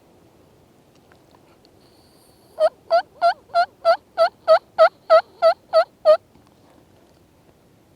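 Turkey call sounding a run of twelve evenly spaced hen yelps, about three a second, close and loud: a hunter calling to a strutting gobbler.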